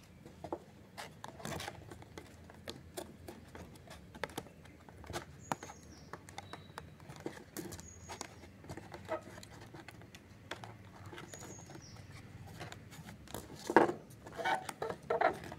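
Cardboard pieces being handled and slid into cut slits: scattered light scratches, rubs and taps of card on card, with one sharper knock near the end.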